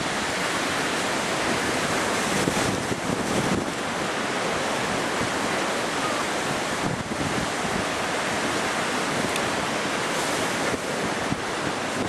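Steady rush of wind on the microphone mixed with breaking waves of a storm-rough sea.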